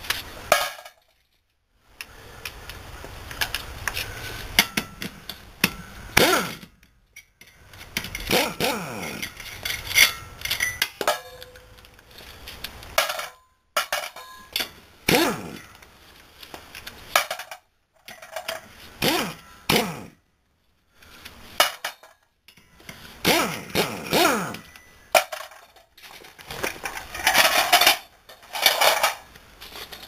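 Pneumatic impact wrench run in short bursts to spin the already-loosened lug nuts off a truck's front wheel, each burst winding down in pitch when the trigger is released. Metal clinks come between the bursts as the nuts and tool are handled.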